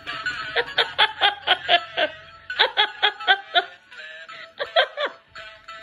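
A person laughing hard in rapid, breathy bursts of about five pulses a second, in three runs with short pauses between.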